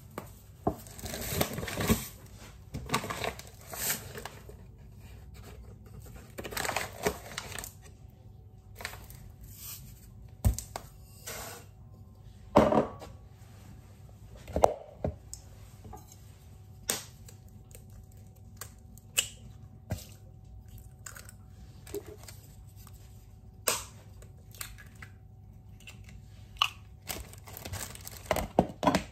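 Hands-on kitchen baking sounds while making banana cake batter: scattered knocks and clinks of utensils and bowls, every second or two. In the first several seconds there are short bursts of rustling and tearing, like packaging being opened.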